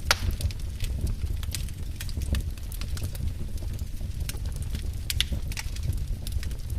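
Wood fire crackling in a fireplace: a steady low rumble of flames with irregular sharp pops and snaps, the loudest pop right at the start.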